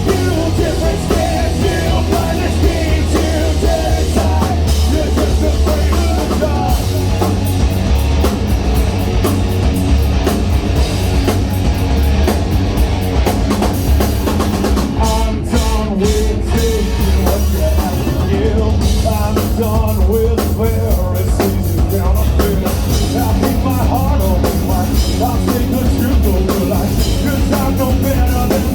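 Live rock band playing loud through a venue PA, recorded on a phone: heavy drums, distorted guitars and bass, with a singing voice over them.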